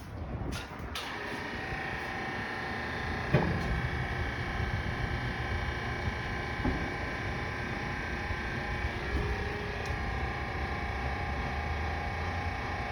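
Frame-straightening machine's pump running steadily with a held whine and low hum while the truck's frame rail is pushed, with a few sharp pops from the frame under pressure, the loudest about three and a half seconds in.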